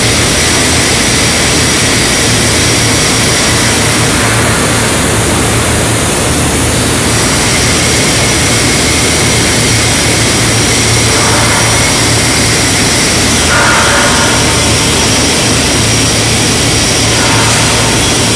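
Steady, loud industrial machinery roar with a low hum underneath, the constant running noise of a steel fabrication shop.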